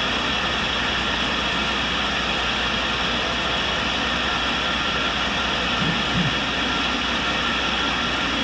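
Tool and cutter grinder running, its wheel grinding the cutting end of a 4-flute roughing high-speed steel end mill. The sound is a steady hiss with a few faint steady tones.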